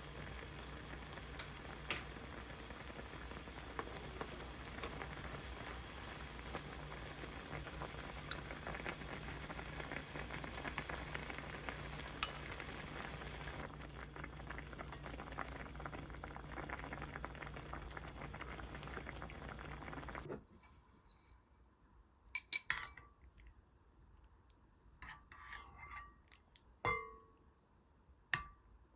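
Food sizzling in a frying pan: a steady frying hiss over a low hum, with occasional light ticks of a utensil stirring. It cuts off suddenly about two-thirds of the way through, and a few sharp clinks of dishes follow.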